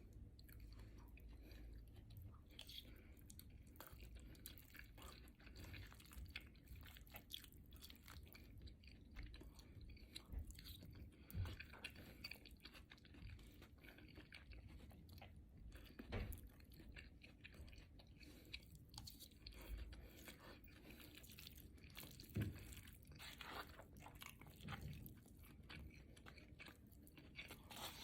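Faint close-up mouth sounds of a person chewing and biting into a Chipotle burrito: soft, wet chewing clicks, with an occasional louder bite.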